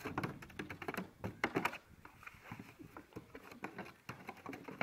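Polar bear chewing and clawing a flattened plastic barrel: a dense, irregular run of clicks and crackles from the plastic.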